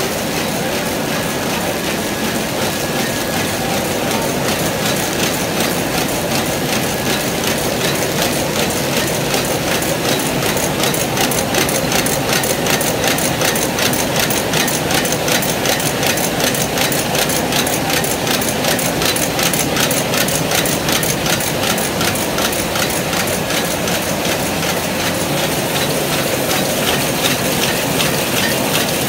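Servo-driven square-bottom paper bag making machine running: a loud, steady mechanical clatter of its rollers and mechanisms, with a fast, even beat of clicks as it cycles.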